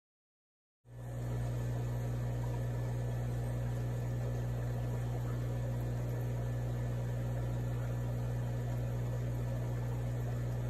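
Steady low electrical hum with one strong deep tone and fainter overtones above it, starting abruptly about a second in and not changing.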